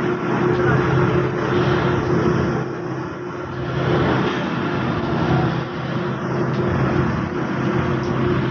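Heavy machinery engine running steadily: a loud low drone with a steady hum over a rushing noise.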